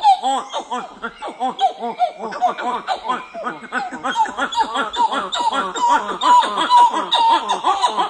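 Monkeys giving quick, laughter-like chattering calls, many overlapping, several a second without a break.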